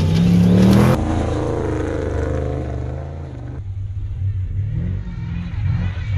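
Off-road desert race truck engine revving hard as the truck passes, rising to its loudest in the first second, then wavering and falling away. It drops quieter about three and a half seconds in, and an engine is heard climbing again near the end.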